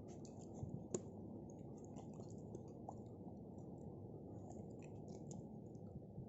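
Faint scattered clicks and small knocks over a low steady hum, with one sharper click about a second in.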